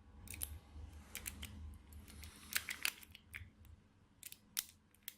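Lock picks working the wafers of an ABUS Element 290 disc lock: irregular small metallic clicks and ticks of the tools in the keyway, with some handling rumble in the first half.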